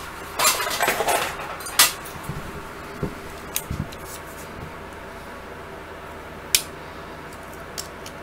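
Small metal parts and a digital caliper being handled on a wooden workbench: a short metallic rattle about half a second in, a sharp click just before two seconds, then scattered lighter clicks and taps as the caliper jaws are set on a motor shaft, with one more sharp click later on.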